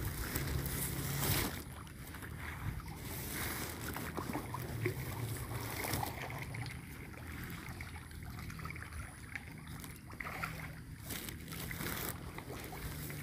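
Wind rushing over a phone's microphone, gusting louder in the first second or so, with a faint low hum underneath.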